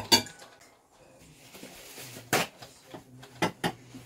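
Kitchenware being handled on a counter while packing: a clatter at the start, a brief rustle of paper, then a few sharp knocks and clinks as items are set down.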